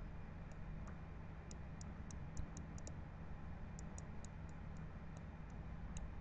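Computer mouse clicking at irregular intervals, some clicks in quick clusters, over a faint low steady hum.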